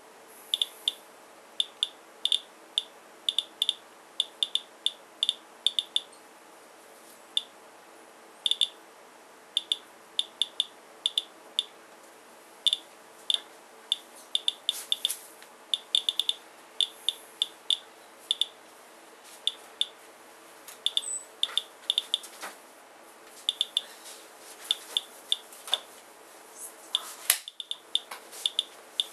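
Geiger counter chirping at random intervals, one short high beep per detected count, about two to three a second, as it counts a rain sample for radioactivity.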